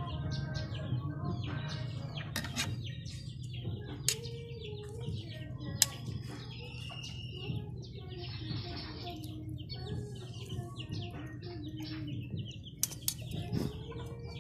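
Small birds chirping in the background while a knife and forks tap and scrape against a plastic cutting board, with a few sharp clicks, over a steady low hum.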